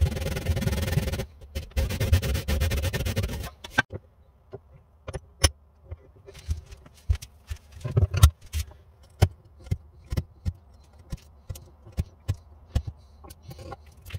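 Back saw cutting a shallow slot into a wooden sanding bobbin held in a bench vise: a run of rasping strokes that stops about three and a half seconds in. After that, scattered light knocks and clicks of tools being set down and handled.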